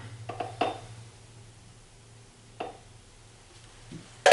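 A few light knocks and clicks from handling a plastic oil bottle at the top of a motorcycle fork tube: three close together at the start and one more a couple of seconds later. A steady low hum runs underneath.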